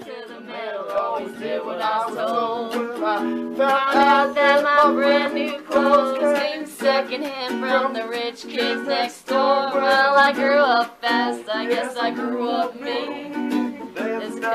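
Ukulele strummed in a steady rhythm, with a voice singing along.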